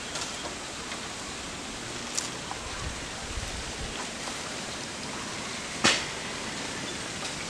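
Leafy plants rustling and stems snapping as greens are picked by hand, over a steady outdoor hiss. Small scattered clicks, with one sharp snap about six seconds in, the loudest sound.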